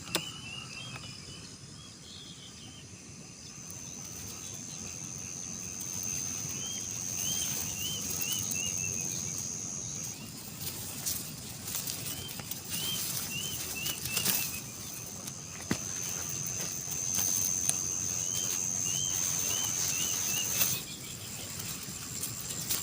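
Countryside ambience: a bird repeats a short phrase of five or six quick, arched chirping notes every few seconds. Behind it a high, steady insect drone stops and starts.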